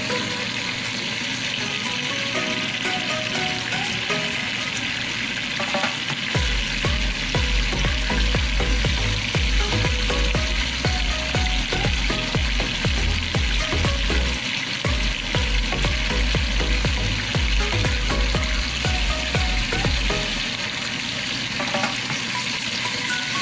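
Beef steaks frying in oil in a pan, a steady sizzle. A low rumble joins it about a quarter of the way in and drops away near the end.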